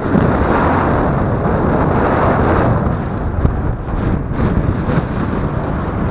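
Airflow buffeting the camera's microphone in paraglider flight: a loud, steady rush that swells and dips.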